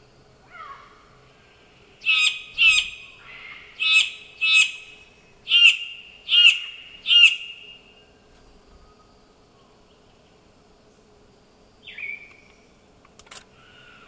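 Male Vogelkop superb bird-of-paradise calling in display: seven loud calls, less than a second apart, beginning about two seconds in. Later comes a single falling note, then two sharp clicks near the end.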